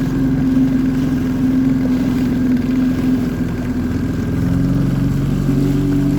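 Personal watercraft (jet ski) engine running under way, a steady engine note whose pitch changes about four and a half seconds in.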